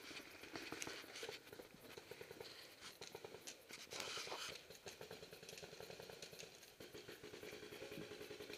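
Faint distant paintball markers firing: scattered pops and quick strings of shots.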